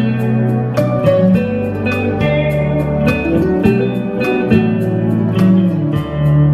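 Gretsch electric guitar played with a clean tone: a chord progression of plucked and strummed chords, each ringing on, with a new stroke about every half second to a second.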